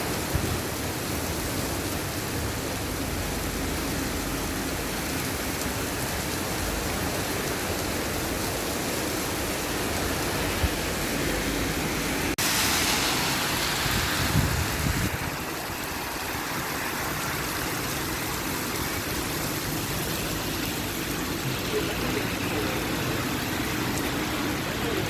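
Heavy rain falling, a steady hiss. About twelve seconds in the sound changes abruptly and is louder for a few seconds before settling back to a steady hiss, with a few single clicks along the way.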